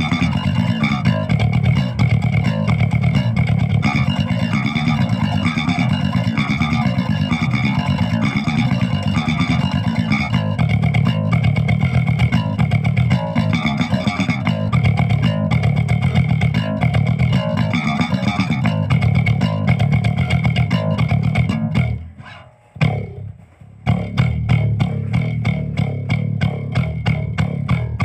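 Four-string electric bass guitar playing a fast brutal death metal riff of rapid low notes. It breaks off for about two seconds some 22 seconds in, then comes back in evenly spaced notes.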